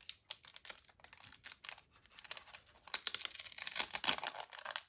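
Crinkly plastic packaging being handled and torn open, an irregular crackling that grows busier and louder in the second half.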